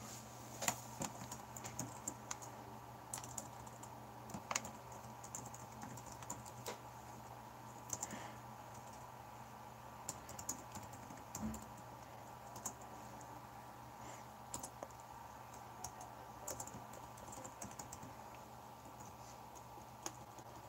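Faint, irregular clicking of typing on a computer keyboard, over a low steady hum.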